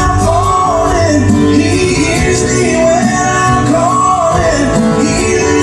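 Live band playing an instrumental passage of a gospel song, a bending lead melody over a steady bass.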